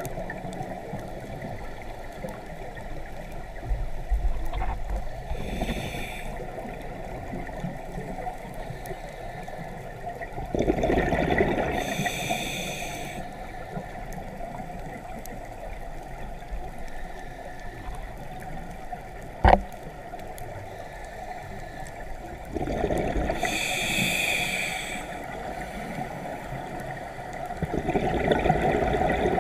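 Scuba diver's regulator breathing heard underwater: exhaled bubbles gurgling and hissing past the camera housing in washes a few seconds apart, over a steady underwater hiss. A single sharp click sounds about two-thirds of the way through.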